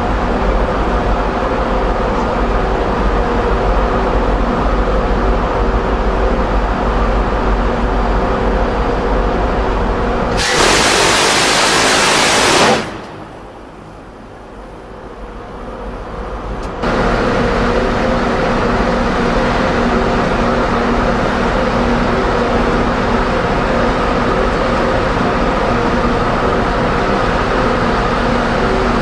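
Steady machinery and wind noise on a warship's deck with a low hum. About ten seconds in comes one burst of about two seconds from the Phalanx CIWS's 20 mm six-barrel Gatling cannon firing. After it the sound falls away for about four seconds, then returns suddenly.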